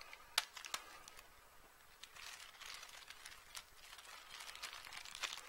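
Faint crinkling and rustling of plastic packaging being handled, with a couple of light clicks in the first second.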